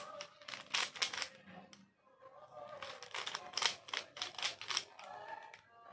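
Rubik's cube being turned by hand: its plastic layers click in quick runs of turns, with a short lull about two seconds in.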